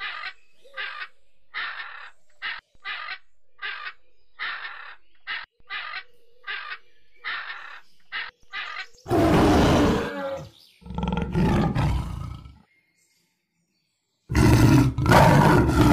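Animal calls: a run of short, repeated calls at just under two a second. About nine seconds in come louder, harsher and deeper calls, broken by a sudden cut to silence and resuming near the end.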